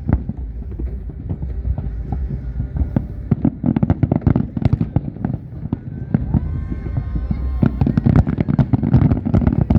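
Fireworks bursting overhead: a steady run of bangs and crackles that grows thicker and faster about three and a half seconds in.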